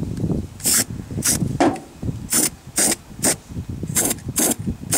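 Aerosol can of anti-rust spray paint hissing in about eight short bursts as it is sprayed into drilled bolt holes.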